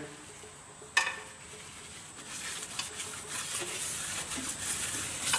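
Rag rubbing over the deck of a Cummins 8.3L diesel engine block, wiping the head gasket surface clean and dry with brake parts cleaner. There is a sharp click about a second in, and the scrubbing hiss grows louder from about two seconds on.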